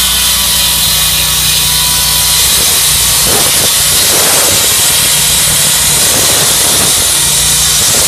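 Hydraulic concrete hand saw with a large diamond blade wet-cutting a concrete block: a loud, steady grinding hiss of the blade in the cut, with a steady low drone underneath.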